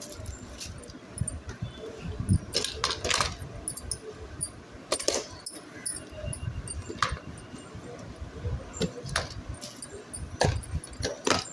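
Items being packed back into a kit bag by hand: irregular handling noise with scattered clinks and knocks.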